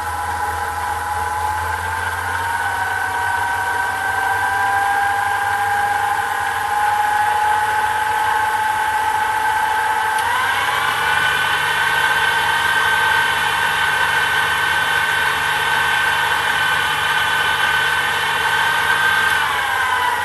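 Sherline miniature metal lathe running under power, its motor and belt-driven spindle giving a steady whine. About halfway through the pitch steps up as the speed is raised, and near the end it falls back as the speed is turned down.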